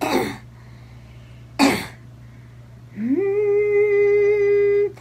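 A woman's voice clears her throat twice, then holds one long steady note that slides up at its start: a singer warming up her voice just before a song.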